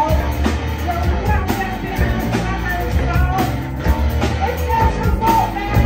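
Live rock band playing: two electric guitars, electric bass and drum kit, with a steady drum beat.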